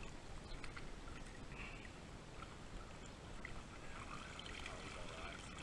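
Faint sloshing and lapping of creek water stirred by people wading waist-deep.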